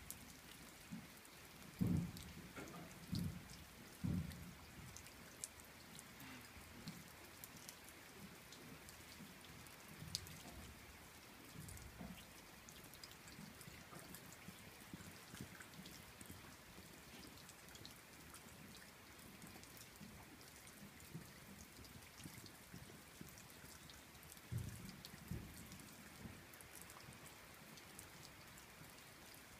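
Light steady rain, with scattered drops ticking close by. A few short low thumps stand out, the loudest about two and four seconds in and again near the end.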